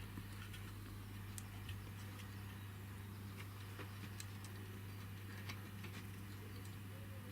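Faint, irregular small clicks and ticks of small tools and parts being handled during wiring work, over a steady low hum.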